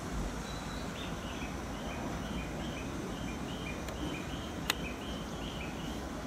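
A bird calling repeatedly in short high chirps, alternating between two pitches a few times a second, over a steady low rumble. There is a single sharp click a little before the end.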